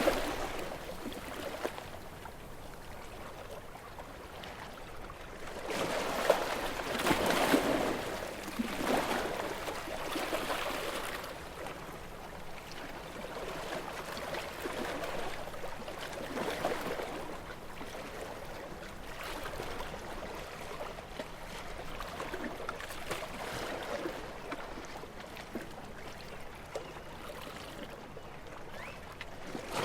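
Gentle waves washing onto a beach: each small wave swells up and drains back every several seconds, with trickling water in between.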